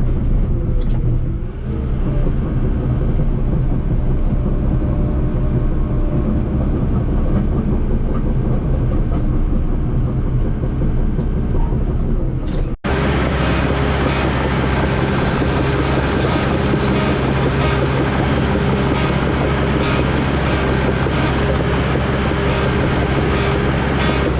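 Heavy diesel equipment running steadily with a low engine hum and rattle. About halfway through, an edit cuts to another stretch of machine running, with more hiss and clatter.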